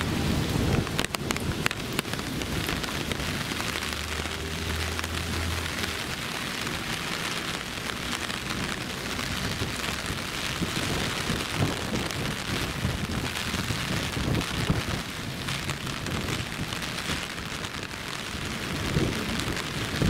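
Steady typhoon rain falling, with a brief low hum about four seconds in.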